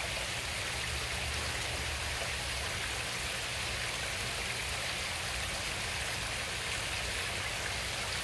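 Steady sound of running, splashing water from a koi pond, with a low steady hum underneath.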